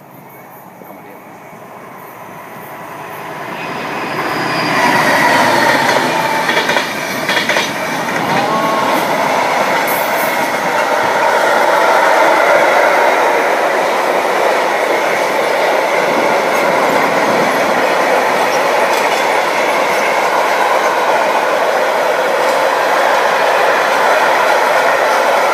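Freight train of covered sliding-wall wagons rolling past: the noise of wheels on rails builds over the first few seconds, then holds steady and loud. Faint high wheel squeal sits over it, with a few sharp clicks early on.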